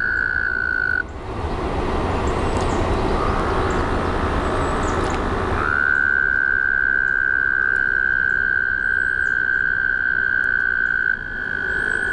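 A male toad calling: a long, unbroken, high-pitched trill held steady at one pitch. It stops about a second in, leaving a few seconds of hiss with a fainter, lower trill under it, then starts again about halfway and runs on, with a short break near the end.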